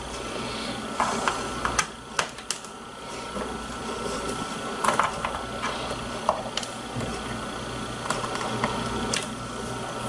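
Small Torx screwdriver backing screws out of a GPS unit's plastic rear case: scattered light clicks and ticks over a steady low background hum.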